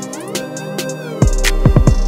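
Electronic backing music. The bass and drums drop out for a short break filled with rising synth sweeps, then the heavy kick-drum beat returns about a second in.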